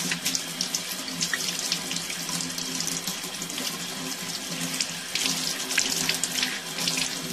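Kitchen tap running, its stream splashing over a CD rubbed by hand and into a stainless steel sink: dried toothpaste being rinsed off the disc. Steady water noise with frequent small splashes throughout.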